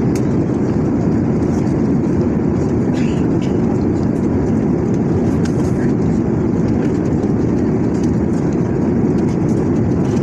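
Airliner cabin noise in flight: a steady, even low rumble of engines and airflow, with a few faint clicks.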